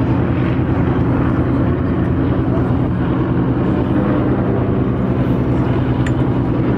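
Propeller aerobatic planes with radial piston engines, a formation of Yakovlevs, droning steadily overhead.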